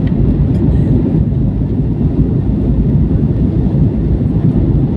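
Steady low rumble of jet engine and airflow noise heard inside the cabin of an Airbus A320-family airliner in flight.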